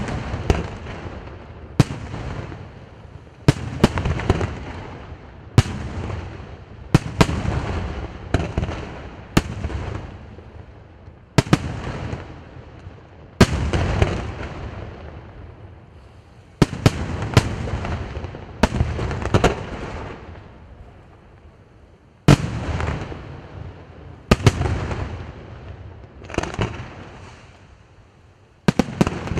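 Aerial fireworks shells bursting in an irregular volley: sharp bangs every second or two, each trailing off in a long rolling rumble, with a couple of short lulls.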